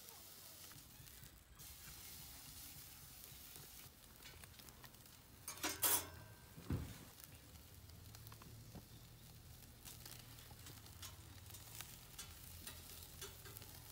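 Meat sizzling on a stainless grill grate over a pipe-style wood gas stove, a steady faint hiss with scattered small pops. About six seconds in there is a brief loud handling noise, followed by a low thump.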